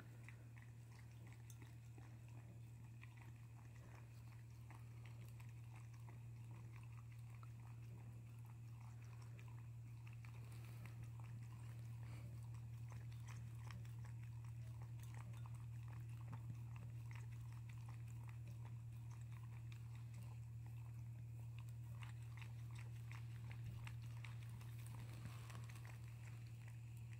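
Shetland sheepdog eating from a ceramic bowl while lying down: faint chewing with many small irregular clicks, over a steady low hum.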